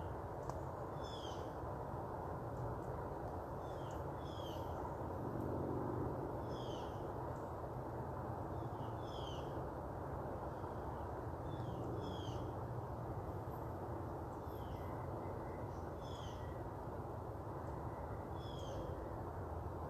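A small bird repeating a short, high chirp about every two to three seconds, over a steady low rumble of background noise.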